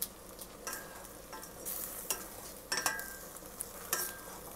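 Chicken wings, onion, garlic and bay leaves sizzling in a little oil in a stainless steel pot while being stirred with a plastic slotted spoon, which knocks against the pot about five times, some knocks ringing briefly.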